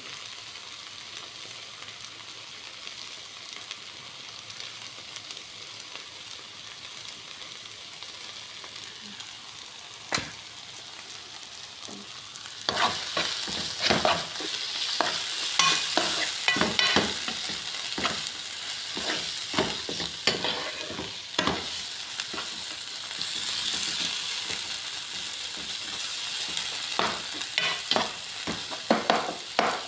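Chopped tomatoes and onions sizzling in a nonstick frying pan. About twelve seconds in, a spatula starts stirring and scraping the pan; the sizzle grows louder, with repeated scrapes and knocks against the pan.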